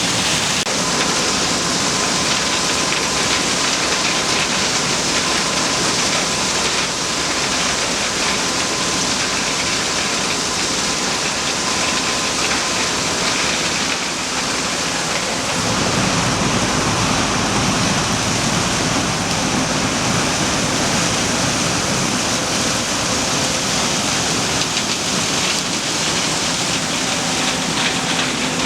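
Corn harvesting machinery running close by: a loud, steady rushing noise, with a deeper low rumble that strengthens about halfway through.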